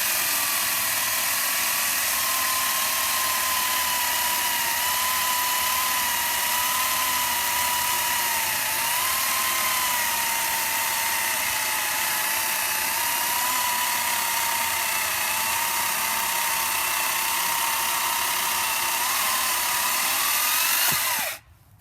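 Makita XCU06 18-volt battery top-handle chainsaw with a 10-inch bar and quarter-inch-pitch chain, cutting through bitternut hickory. Its motor gives a steady high whine that wavers and sags a little in pitch under load, then stops abruptly near the end. The hard wood pushes this small saw to about its limit.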